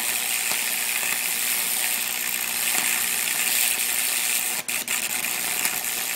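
High-voltage arc from a microwave oven transformer sizzling and crackling steadily as it burns into an apple through an embedded screw. It cuts out briefly a few times near the end as the arc breaks and restrikes.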